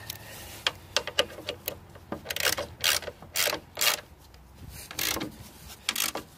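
Hand socket ratchet clicking as it tightens a nut on a snowblower's metal headlight bracket: a few single clicks, then a string of short back-strokes, each a quick burst of clicks, about half a second apart.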